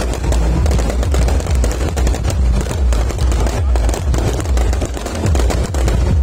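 Fireworks display going off in rapid, continuous volleys of bangs and crackles.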